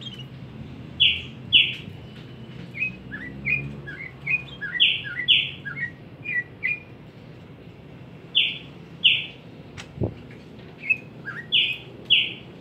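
Pet songbird singing: loud sharp notes in pairs, repeated every few seconds, with quieter short falling chirps between them. A single knock comes about ten seconds in.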